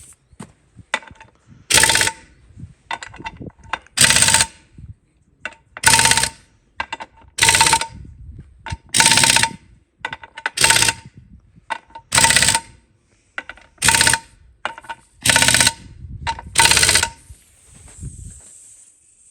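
Impact wrench tightening the wheel nuts on a Ford 9N tractor wheel, run in about ten short bursts of rapid hammering, each well under a second, roughly every second and a half.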